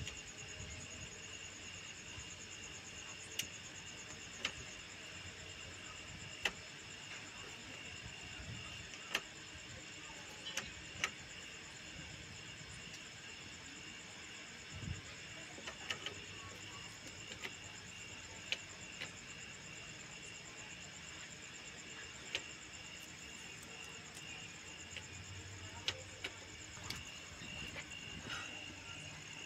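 Crickets chirping steadily in a dense, even chorus, with occasional short sharp clicks.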